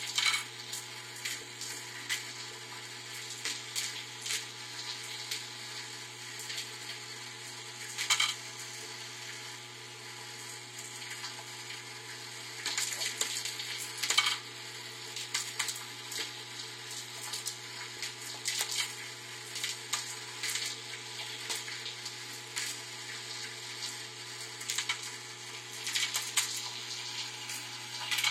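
Vibratory bowl feeder running with a steady low hum, its vibrating bowl rattling wooden Scrabble tiles along the spiral track in a continuous light chatter, with louder clacks every few seconds.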